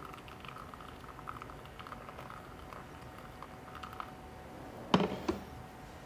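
Thin stream of hot water from a stainless gooseneck kettle pouring onto ground coffee in a V60 dripper for the bloom: a faint patter and trickle that stops after about four seconds. About five seconds in comes a sharp knock, the kettle being set down on the counter, with a second smaller knock just after.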